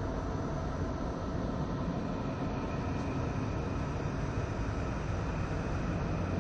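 'Sound of Neptune' from NASA's Voyager: spacecraft data rendered as audio, a steady, dense low rumble with a few faint held tones above it.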